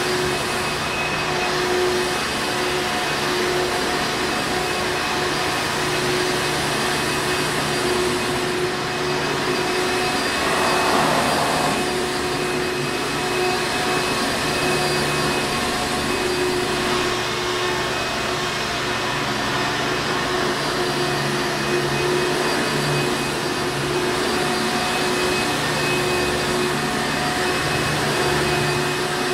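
Hoover Encore Supreme upright vacuum cleaner running steadily: a continuous motor whine over a rushing of air. There is a brief swell in the rushing about eleven seconds in.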